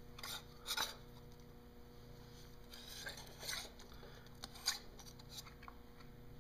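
Faint, intermittent scraping and rubbing of the seawater pump housing, with a new rubber impeller inside, being turned and worked onto the engine's drive shaft by hand, in several short bursts.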